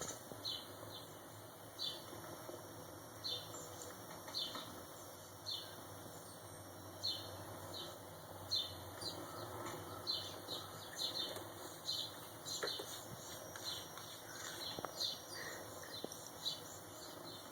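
Small birds chirping from a bird video playing on a computer: short, high, falling chirps repeated irregularly, coming in quick runs in places.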